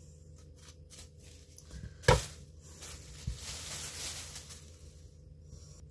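Thin plastic bag crinkling and rustling as gloved hands handle it. A single sharp knock comes about two seconds in.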